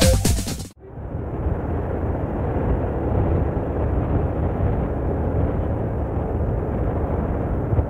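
Electronic music cuts off abruptly less than a second in. After it comes a steady low rumble of engine and road noise from driving close behind a Mercedes-Benz coach.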